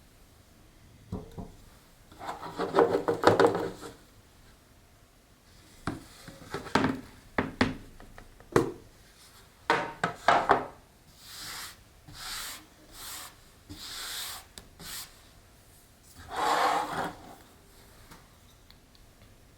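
Hands-on repotting noises: potting soil and a pot scraped, rubbed and knocked in separate bouts. Midway there is a run of about five short hisses, one every second or so.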